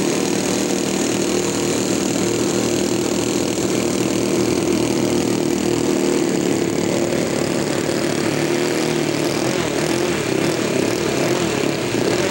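Large-scale radio-controlled model airplane engine and propeller running close by at a steady pitch.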